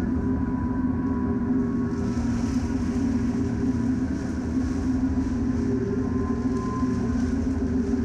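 Steady, loud low drone with several held tones, unbroken throughout; a faint higher hiss joins about two seconds in.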